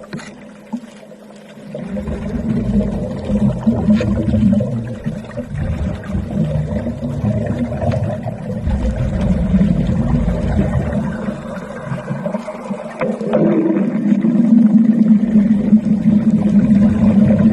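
Underwater wet arc welding heard below the surface: a low, steady drone with a rough gurgling rumble, louder in the last few seconds.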